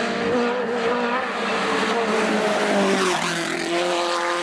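Rally car engine running hard as the car comes through a bend and passes close by. A rush of noise builds around two to three seconds in, then the engine note drops as it goes past.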